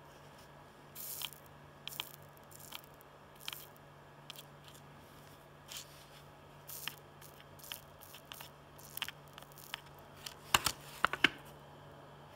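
Soldering iron tip working flux-coated SOIC-8 chip pins: short, irregular crackling sizzles of flux paste, with a cluster of sharp clicks near the end.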